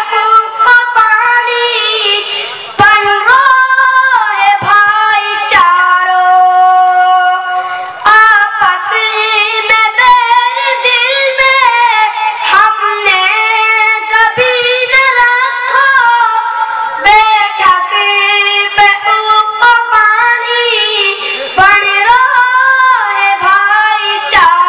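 A boy singing a nazm (Urdu poem) solo into a microphone, in long held, melodic lines with no instrumental accompaniment.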